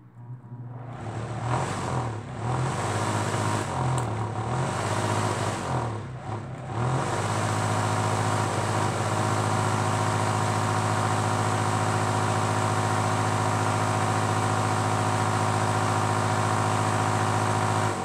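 Microwave oven cooling fan motor powered on the bench through hand-held test leads, running with a loud electrical hum and a rush of air. The hum wavers and dips several times in the first seven seconds, then holds steady.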